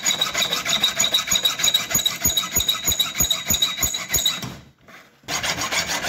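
Hand file scraping across the carbide tips of a circular saw blade in quick, regular strokes, about three a second, sharpening the worn tips. It stops briefly about five seconds in, then starts again.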